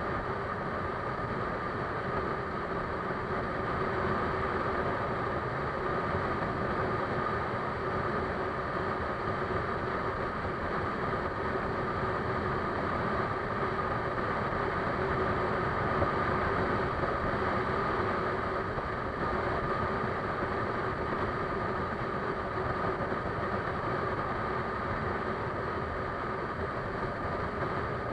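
A steady, unchanging mechanical drone with a constant hum, like a running engine.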